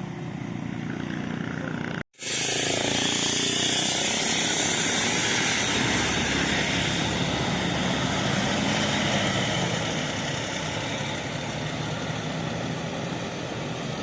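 Heavy vehicle engine running steadily. A short gap about two seconds in, after which the engine noise is louder and carries a strong steady hiss.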